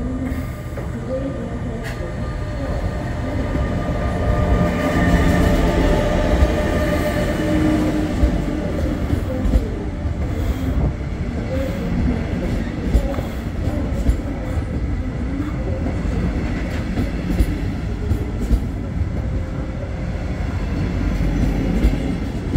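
DB class 146 electric locomotive pulling double-deck regional coaches slowly past the platform. A whine from the locomotive rises and swells about five seconds in, then the coaches roll by with repeated clacks of wheels over rail joints.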